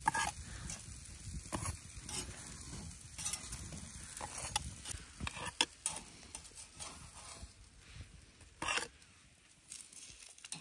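Sucuk sausages sizzling in a pan, with scattered sharp clicks throughout.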